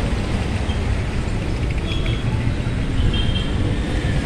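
Steady low rumble of street traffic. A couple of brief high chirps come about two and three seconds in.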